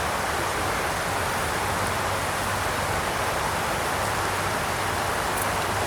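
Steady rushing water noise, an even hiss that stays level throughout with no rhythm or separate drops.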